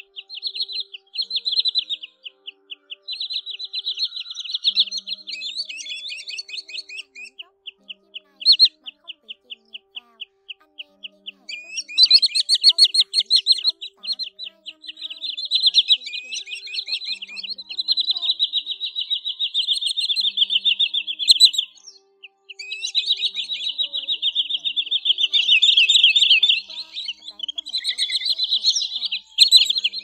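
Sandpipers calling: rapid runs of sharp, high whistled notes that become denser and overlap as if from several birds about twelve seconds in, with a brief break a little past two-thirds through.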